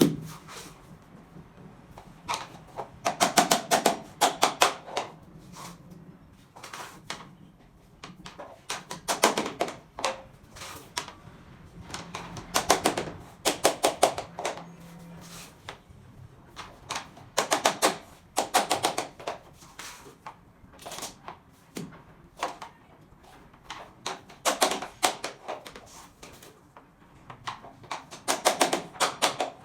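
Rapid runs of sharp taps on SPC stone-plastic floor planks, knocking the click-lock joints together to seat them. A burst of quick strikes comes every four to five seconds, with quieter gaps between.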